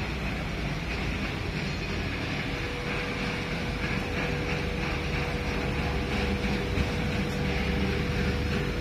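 Diesel engine running steadily at a constant speed, a low rumble with a thin steady whine that comes in a couple of seconds in.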